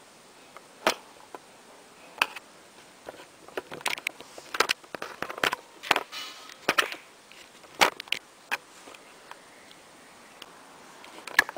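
Irregular sharp clicks and taps mixed with brief rustling, from hands handling things close to the microphone. They start about a second in, come a second or more apart at first and grow more frequent after about four seconds.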